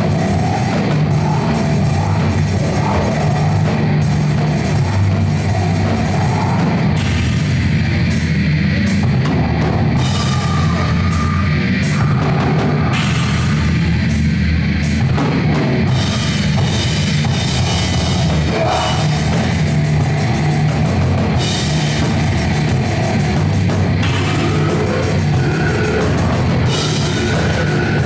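Live heavy metal band playing loudly: electric guitars and bass over a full drum kit with crashing cymbals.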